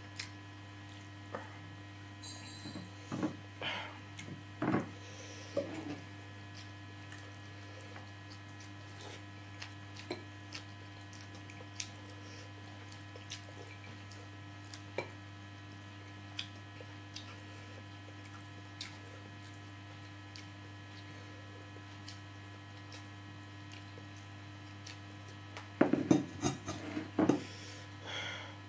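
Eating by hand from a ceramic plate: fingers scraping rice grains across the plate, with scattered small clicks and mouth sounds and a louder cluster of knocks near the end, over a steady electrical hum.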